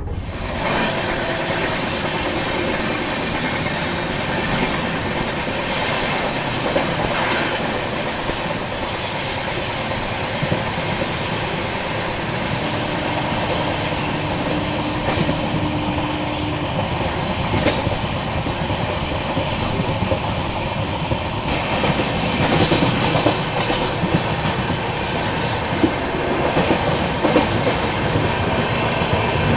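Broad-gauge express train running, its wheels clicking over rail joints against a steady rumble. The clatter grows somewhat louder in the last third.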